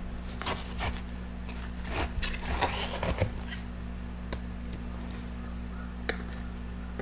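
Fillet knife slicing and scraping along a walleye fillet and knocking on the stone counter: a cluster of short scrapes and knocks in the first half, then a few single clicks, over a steady low hum.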